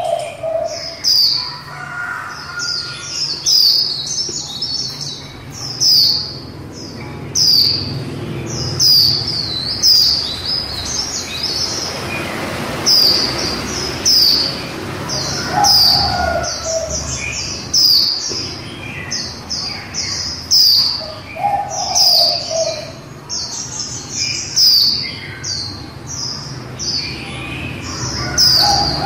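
Female white-eye calling: short, sharp, high-pitched chirps that drop in pitch, repeated about once or twice a second and sometimes run together in quick strings.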